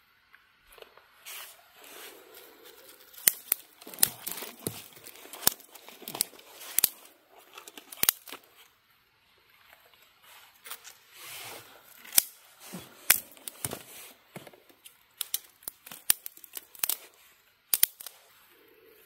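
Thin dry twigs snapped by hand and laid onto a small kindling fire: sharp cracks at irregular intervals, with rustling of the sticks between them.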